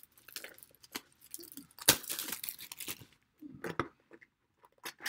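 Panini Obsidian basketball card box being torn open and handled by hand: tearing and crinkling of its cardboard and wrapping, with sharp clicks and a loud snap about two seconds in. It goes quieter near the end.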